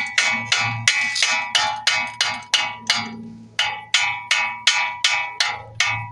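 Hammer blows on steel front suspension, a steady run of about three sharp ringing strikes a second with a brief pause about three seconds in, knocking the steering knuckle loose from the strut.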